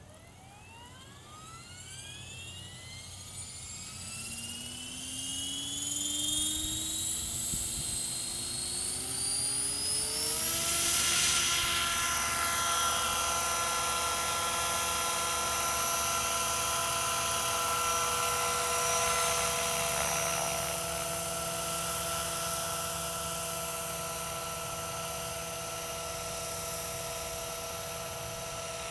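Scale radio-controlled AS350 helicopter spooling up from rest: a whine that rises steadily in pitch for about ten seconds, then settles into a steady high whine at flying speed as it lifts off and flies.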